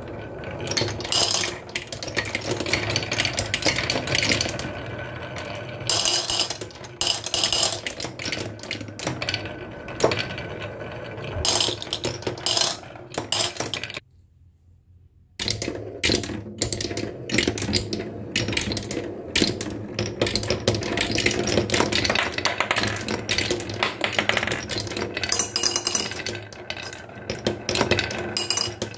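Marbles rolling and clattering down a wooden marble run: a steady rolling rumble over wooden track with rapid clicks and knocks as they drop through the wooden blocks. The sound cuts out for about a second and a half around the middle, then carries on.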